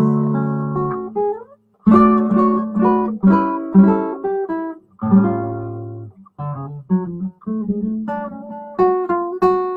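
Classical guitar played solo, picked chords and melody notes that ring and fade in short phrases with brief pauses. It is the instrumental introduction to a sung song.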